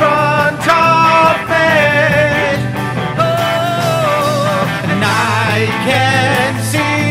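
Rock song: a man singing long, wavering held notes over acoustic and electric guitars.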